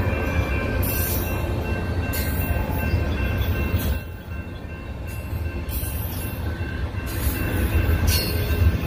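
Double-stack intermodal freight train rolling past: a continuous heavy rumble and rattle of the cars on the rails, with short high hissing surges about once a second. It eases off briefly about four seconds in, then builds again.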